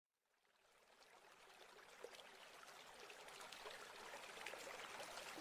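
Opening of an electronic music track: a faint stream-like trickling water texture fades in from silence, growing steadily louder.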